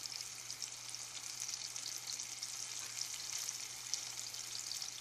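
Flour-coated stuffed chicken wings deep-frying in a pot of hot oil: a steady bubbling sizzle thick with fine crackles.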